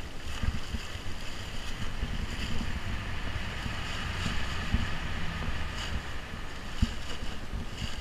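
Plastic sheeting rustling and crinkling as it is pulled from the ground and stuffed into a plastic carrier bag, with a few sharp clicks and a low rumble of wind and handling on the microphone.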